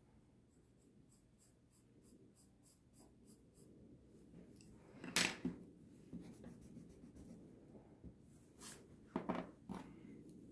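Sketching strokes: a run of short scratches at about three or four a second, then a few louder scrapes or knocks about halfway through and three more near the end.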